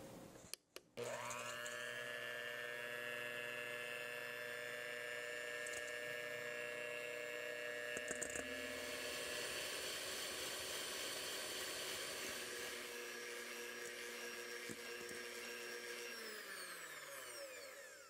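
Electric hand mixer beating eggs and sugar in a stainless steel bowl until the sugar dissolves. The motor whirs up to speed about a second in, runs with a steady whine, and winds down near the end.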